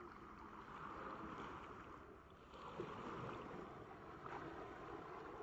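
Small waves lapping and washing up on a sandy beach, faint, swelling twice.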